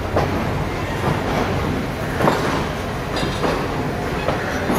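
Passenger train rolling through a station, heard from on board: steady running noise of the wheels on the rails, broken by a few irregular clanks and knocks from the track.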